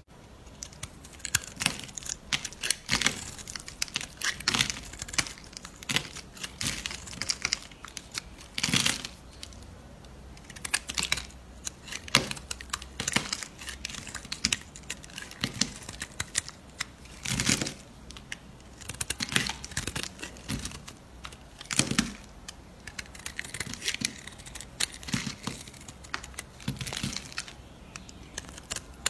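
A snap-off utility knife blade scraping and cutting into a hard bar of soap, in irregular strokes as shavings come away.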